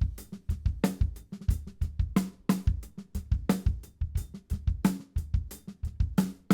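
Acoustic drum kit playing a steady groove, heard through its close microphones only: kick drum, snare drum and hi-hat blended together, with the hi-hat panned a little to the left.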